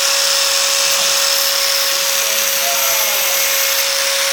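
A power tool running steadily with a loud hiss and one constant tone, as a hole-cutting drill bit is sharpened.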